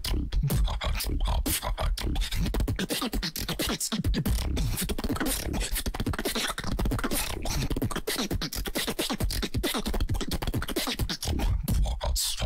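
Solo human beatboxing into a handheld microphone: rapid, dense kick, snare and hi-hat mouth sounds over a continuous deep bass, with pitched hummed vocal lines woven in through the middle.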